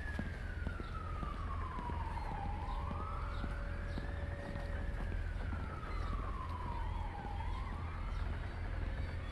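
A siren wailing, its pitch sliding slowly down and back up twice, over a steady low rumble.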